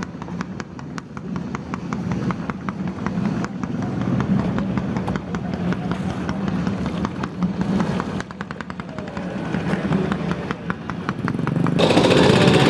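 A small engine running steadily with a rapid, even ticking, with faint voices in the background. Near the end the sound cuts abruptly to louder, busier noise.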